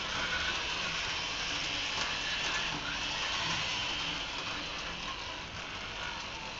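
Rivarossi model tram running around a small oval track: its small electric motor and gearing whir steadily, with faint clicks from the wheels on the rails. A little quieter near the end.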